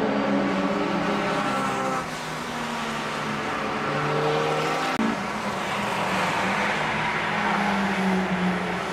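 Cars' engines running as they drive through a coned course and pass close by, the engine notes rising and falling with throttle. The sound changes abruptly about two and five seconds in.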